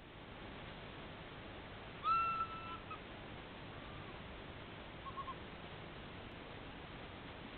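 Raccoon dog pup giving a high, whistle-like whine about two seconds in: one even note just under a second long. Two fainter short calls follow, over a steady background hiss.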